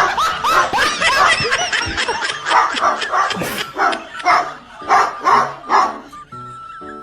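An animal calling: a quick run of short, squeaky rising-and-falling yelps, then a string of short bark-like calls coming in separate bursts, before it stops near the end.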